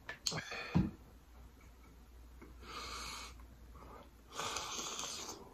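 Close-miked mukbang eating sounds: a few soft clicks and taps in the first second, then two short airy hisses of breath, the second as a sauce-coated shrimp is bitten into.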